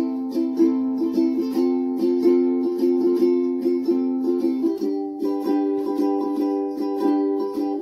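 Ukulele strummed in a steady rhythm, several strums a second, changing chord about two-thirds of the way through.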